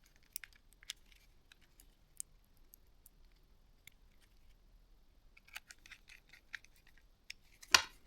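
Small, scattered clicks and taps of phone parts and a small tool being handled during reassembly, with a quick run of clicks late on and one louder clack just before the end.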